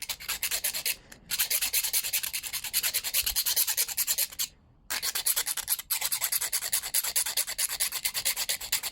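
The Leatherman Rebar multitool's file rasping back and forth across a scrap piece of steel in quick, even strokes, several a second. The strokes come in runs, with short pauses about a second in and around halfway.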